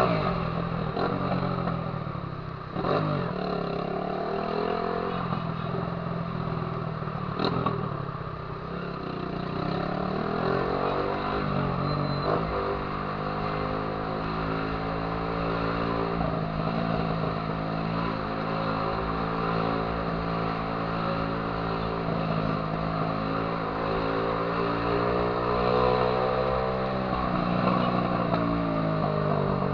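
Honda CG 150 Titan's single-cylinder four-stroke engine through a loud 'viúva-negra' aftermarket exhaust, riding and accelerating, its pitch climbing and dropping back several times through the first nine seconds, then holding a fairly steady pitch before falling away near the end.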